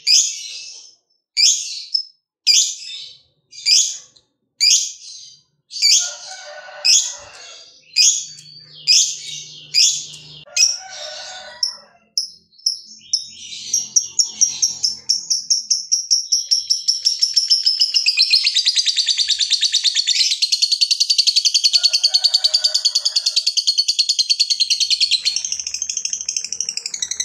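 Fischer's lovebird calling: first a string of separate shrill squawks, one or two a second, then from about halfway a long, fast, unbroken chattering trill. This is the long 'ngekek' song prized in fighter lovebirds.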